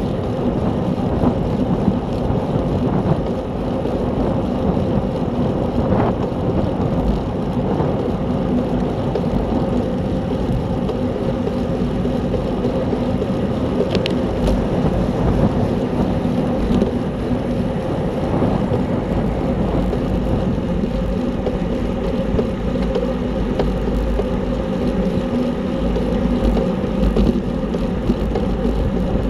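Steady rush of wind over the microphone of a camera on a racing bicycle moving at speed.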